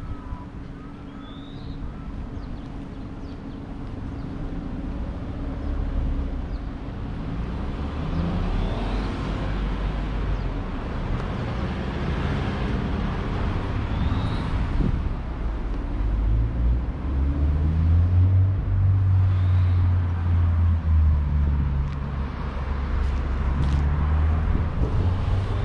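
Road traffic at an intersection: cars running and passing, growing louder as the road gets nearer, with a low engine hum strongest in the second half.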